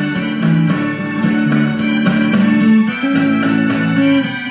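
Live gospel band playing an instrumental passage, with electronic organ or keyboard holding chords over a steady beat.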